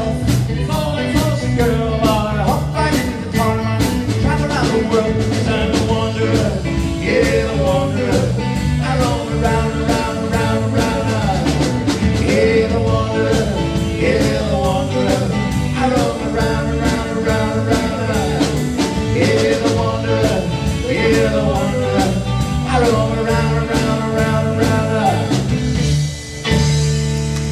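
A small rock-and-roll band playing live, with electric guitars, bass and drum kit under a sung melody. About a second before the end the song stops on a held final chord.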